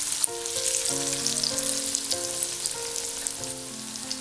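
Vegetable oil sizzling and crackling steadily around spinach-and-potato kofta balls deep-frying in a cast-iron kadai. A soft background melody of held notes plays underneath.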